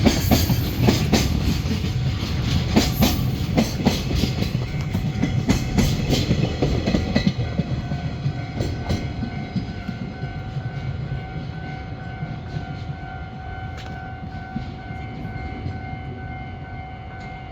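Container freight train hauled by an EH500 electric locomotive passing, its wagon wheels clattering over the rail joints, loud at first and then fading as the train moves away. About halfway through, a steady high tone sets in and continues.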